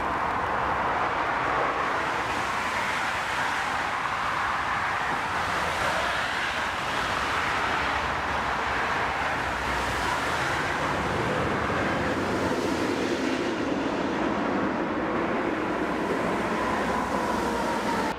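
Airliner jet engines running: a steady roar with a whine that dips slightly in pitch near the end.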